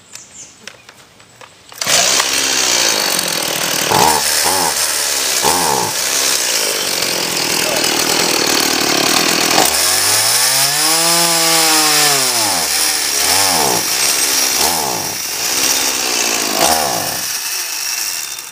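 Stihl MS170 two-stroke chainsaw engine running from about two seconds in. It is revved in several short blips that fall back to idle, and about halfway through it makes one longer rev that climbs and then sags back down. It cuts off near the end. The sagging under throttle is the bog that the owner takes for a fuel-delivery fault with classic clogged-carburetor symptoms.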